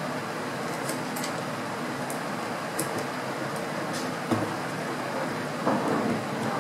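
Small metal clicks and knocks as an air rifle's action is turned over and handled on a tabletop during disassembly, with a knock about four seconds in and a louder clatter near the end, over a steady background hum.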